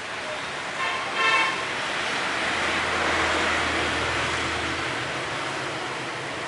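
Street traffic: a vehicle horn toots briefly about a second in, then a vehicle passes, its noise with a low rumble swelling and fading over a few seconds.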